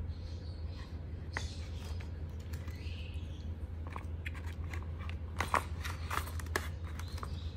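Scattered light clicks and knocks of stationery (scissors, pens and markers) being handled and pushed into the slots of a pencil case. The clicks come closer together in the second half, over a steady low hum.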